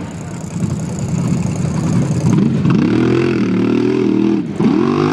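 Supercharged big-block Chevy V8 of a mega mud truck revving as it churns through deep mud. A dense, rough engine sound at first; about three seconds in the pitch climbs and holds high, dips briefly near the end and climbs again.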